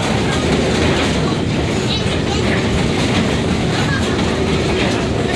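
Passenger train car rolling steadily along the track, heard from aboard, a continuous low running noise without breaks.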